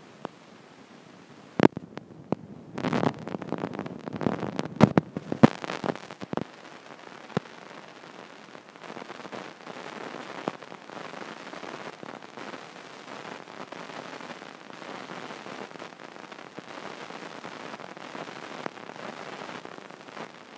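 Stylus knocking and scraping on the iPad screen and the tablet being handled close to the microphone: a run of sharp knocks and scuffs in the first few seconds, then a steady faint rustle while the writing goes on.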